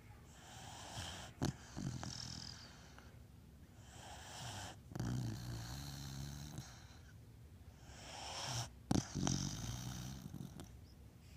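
Beagle snoring: three low, buzzing snores about four seconds apart, each with a sharp click in it.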